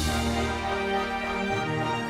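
Background music: held chords, changing about a second and a half in.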